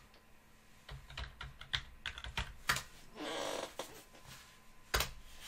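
Computer keyboard typing: a quick run of soft key clicks as a password is typed in, then a single louder keystroke near the end, the Enter key.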